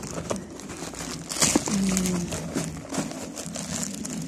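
Packaging being handled during unboxing: plastic and cardboard crinkling and rustling, with a sharp burst of crackles about a second and a half in.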